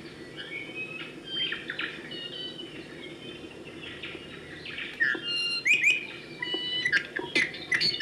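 Several songbirds chirping and whistling: short overlapping calls and clear whistled notes, some sliding in pitch, growing louder and busier about halfway through, over a steady background hiss.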